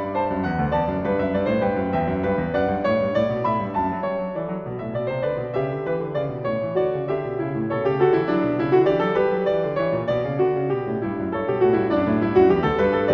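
Piano music: a continuous flowing piece with many overlapping notes.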